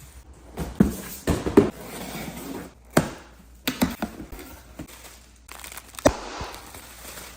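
Packaging being handled and opened: crinkling and tearing, broken by several sharp clicks and knocks.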